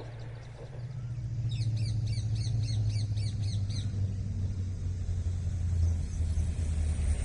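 Low rumble of an approaching Indian Railways diesel locomotive, growing louder from about a second in. A bird calls a quick run of repeated high notes for a couple of seconds over it.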